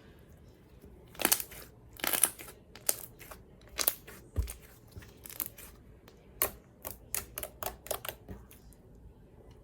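Slime being squeezed and poked by hand, giving an irregular run of short, sharp pops and clicks, with a low thud about four and a half seconds in.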